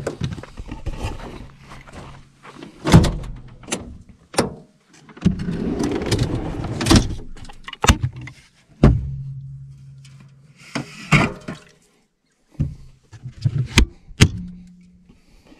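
A vehicle's rear door and a 12-volt camping fridge's lid opening and shutting with a series of knocks and thunks. About halfway through there is a longer stretch of clatter as cans are rummaged among inside the fridge.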